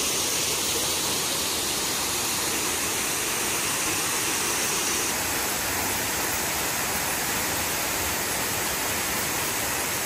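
A tall waterfall plunging down a cliff into a rock pool: a steady, even rush of falling water.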